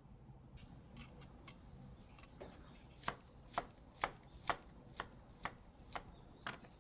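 Knife chopping on a cutting board, faint at first, then a steady run of sharp chops about two a second.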